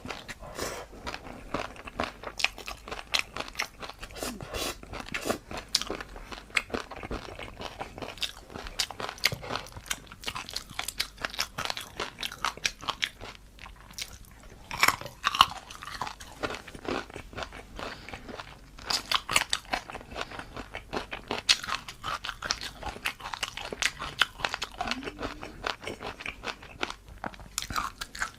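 Close-miked mouth sounds of someone eating crunchy food: rapid sharp crunches and chewing. The crunches thin out briefly about halfway through.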